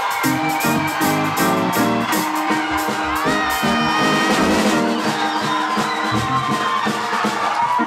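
Fast, upbeat praise music from a live band, with a quick-moving bass line under steady drum beats and sustained melody notes above.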